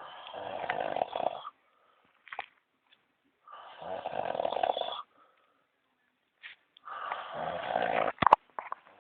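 A sleeping person snoring: three long snores, each about a second and a half, at an even pace of about one every three and a half seconds. A sharp click comes just after the third.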